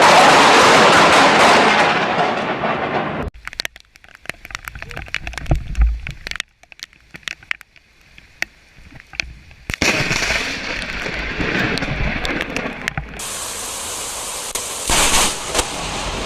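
Close lightning strikes: a loud thunder crack that crackles and fades over about three seconds. Then come quieter stretches of storm noise with scattered sharp crackles, and another loud crack about fifteen seconds in.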